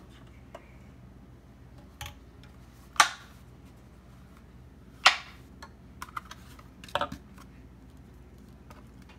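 Plastic gel bottles being handled and knocked against the counter and glass: a handful of separate sharp plastic clacks, the loudest about three and five seconds in.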